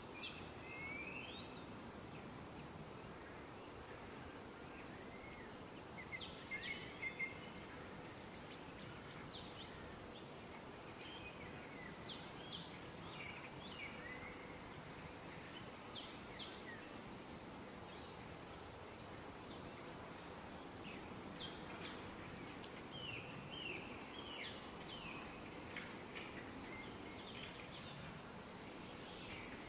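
Faint woodland ambience: scattered short bird calls and chirps over a steady low hiss, with a few slightly louder calls about six seconds in.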